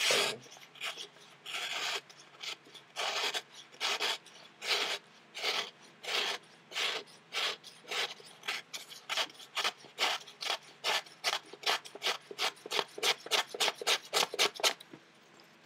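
A freshly sharpened knife blade slicing and whittling through printer paper in repeated short strokes, each a dry rasp, a little over one a second at first and about two a second later. The strokes stop near the end. The edge cuts the paper cleanly.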